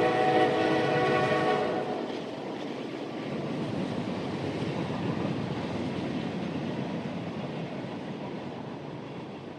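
Train air horn sounding a chord of several notes, which stops about two seconds in. The train's rolling rumble continues after it and slowly fades away.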